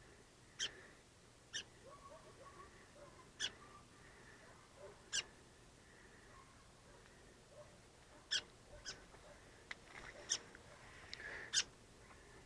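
Faint, short, sharp chip calls from small birds, single notes scattered at irregular intervals, some a second or more apart.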